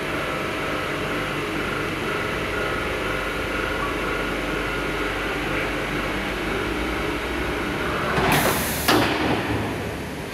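Steady machine hum with a few faint steady tones as the container mixer's bin is raised and closes against the mixer head. About eight seconds in, a short, loud hiss of compressed air with a knock near its end, from the pneumatic cylinders on the head.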